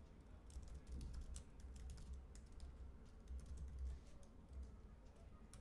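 Typing on a computer keyboard: a run of faint, irregular key clicks.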